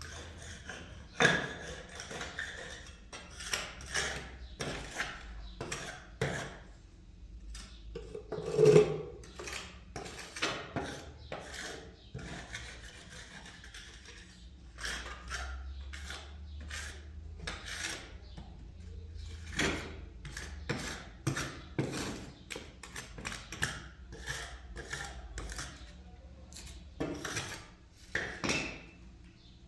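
Irregular clattering: knocks, clinks and rubbing of hard objects being handled, with a louder knock about nine seconds in.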